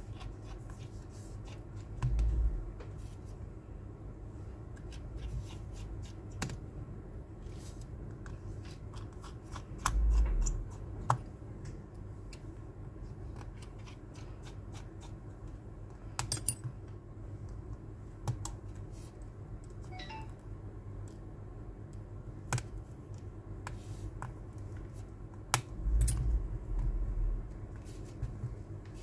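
Scattered small clicks and taps of a hand tool and fingers on the opened tablet's internals, with a few dull bumps of handling, over a steady low room hum.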